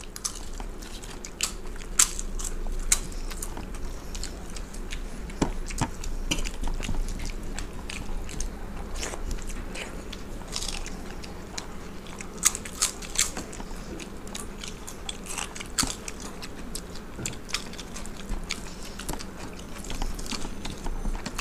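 Close-up eating sounds: crisp crunching bites of fried papad mixed with chewing, with sharp crunches scattered irregularly throughout.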